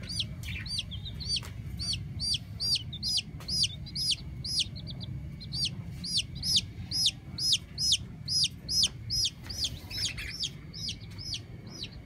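Baby chicks peeping over and over, short high chirps at about three a second, over a low steady rumble.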